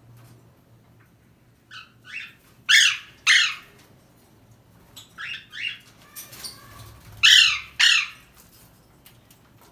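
Parrot calling: harsh, screechy calls that fall in pitch, coming in two pairs of loud calls about half a second apart, with softer, shorter calls between them.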